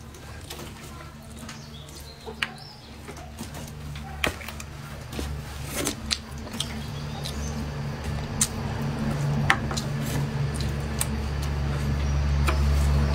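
Close-miked eating sounds: scattered sharp mouth clicks and smacks while chewing braised carp. Beneath them runs a steady low hum that grows louder through the second half.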